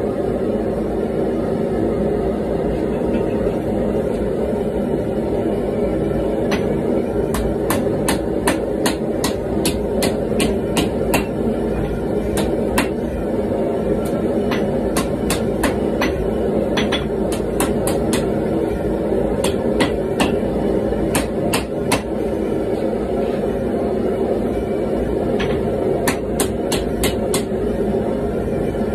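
Hand hammer blows on a red-hot laminated knife billet on the anvil, sharp strikes about two to three a second. They begin several seconds in, pause briefly, then resume near the end, over the steady burner noise of a gas forge.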